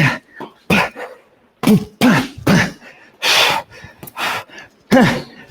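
A man's short, sharp grunts and forced exhales, one with each punch as he throws body shots: about seven quick bursts, with a longer breathy exhale a little past the middle.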